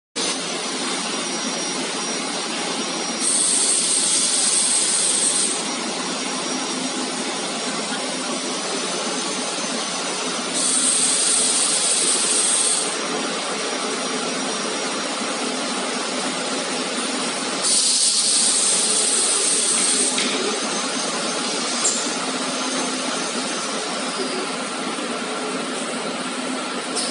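A robotic laser welding machine for pump impellers running, with a steady mechanical hum. Three louder hisses of about two seconds each come roughly every seven seconds.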